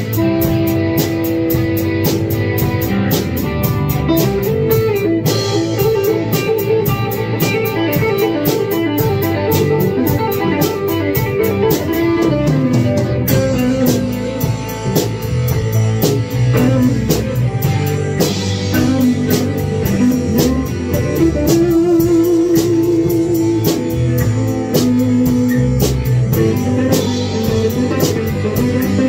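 Instrumental rock jam: electric guitars playing melodic lines and sustained notes, one of them a Jackson electric guitar, over drums keeping a steady beat.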